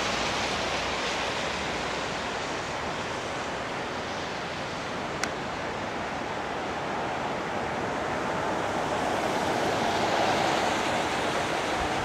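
Big Thompson River floodwater rushing steadily across flooded ground, a constant hiss of moving water that swells a little near the end. One brief click about five seconds in.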